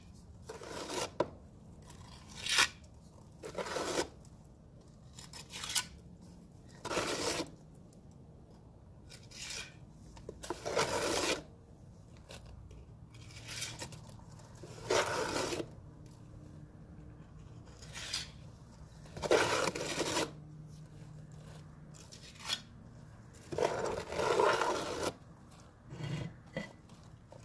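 Steel mason's trowel scraping and knocking against mortar and concrete block: a string of separate short scrapes and taps, a second or two apart, some drawn out to about half a second.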